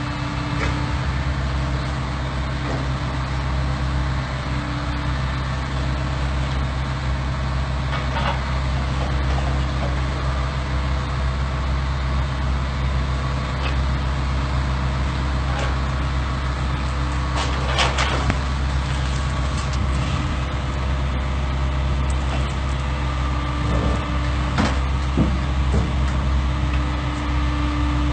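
Heavy excavator diesel engines running steadily, with a few metallic clanks and knocks from the machines working over the trailer, the clearest a little past the middle.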